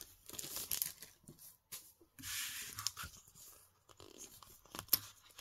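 Kraft-paper packaging and plastic-backed craft flex-foil sheets rustling and sliding as they are handled, in a few short spells, with a couple of light clicks.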